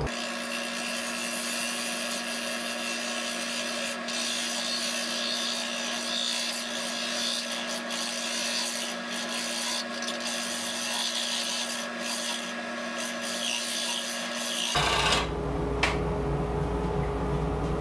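Wood lathe spinning a turkey-call blank slowly while a hand-held turning tool cuts into it: a steady scraping hiss over the lathe's hum. The cutting stops about fifteen seconds in, leaving the lathe running, with a short rush and a click just after.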